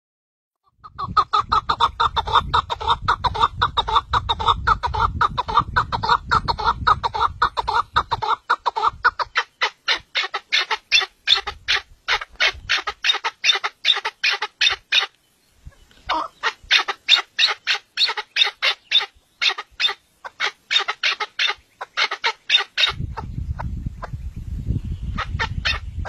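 Chukar partridge calling: a long series of rapid clucking notes, about five a second, pausing briefly twice. A low rumble sits under the calls at the start and again near the end.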